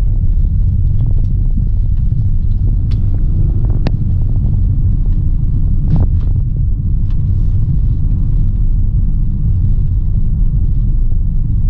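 Car driving, heard from inside the cabin: a loud, steady low rumble of road and engine noise, with a few short sharp knocks between about three and seven seconds in.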